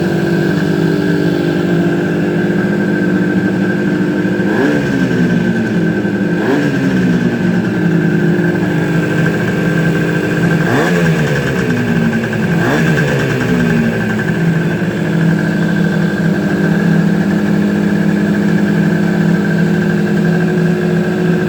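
Freshly rebuilt Suzuki GT250 two-stroke twin engine idling, blipped four times: two quick revs about four and six seconds in, two more about eleven and thirteen seconds in, each rising sharply and dropping back to a steady idle.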